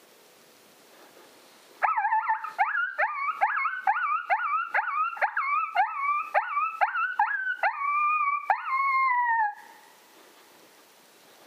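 Coyote-style distress yelping, a ki-yi: about fifteen sharp yelps, each jumping up in pitch and sliding down, roughly two a second, starting about two seconds in and ending in one longer falling whine.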